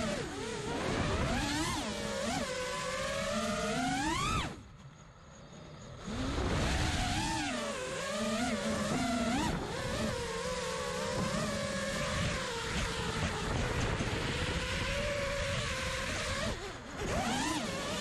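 Brushless motors and props of a 5-inch FPV freestyle quadcopter (Hyperlite 2207.5 2550kv motors on Gemfan 5-inch props), heard from the on-board camera, whining with a pitch that rises and falls with the throttle. Around five seconds in the sound falls away for about a second and a half, then climbs back. There is another brief dip near the end.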